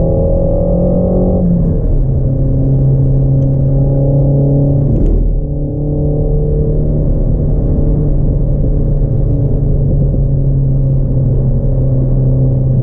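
Renault Mégane RS Trophy engine pulling hard on track: the revs climb, drop sharply about a second and a half in at an upshift, and climb again. About five seconds in there is a short dip with a click at another gear change, then the engine runs on steadily at high revs.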